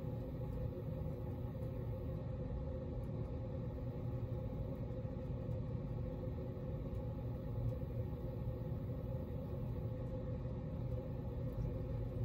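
Hunter baseball-themed ceiling fan running, a steady low hum.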